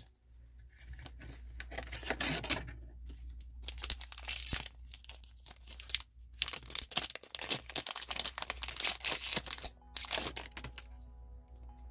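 A foil trading-card booster pack wrapper crinkling and being torn open by hand, in a run of short crinkles that come and go.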